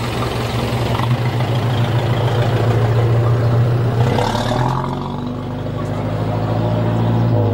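A motor vehicle's engine running steadily, a loud low hum that shifts slightly about four seconds in.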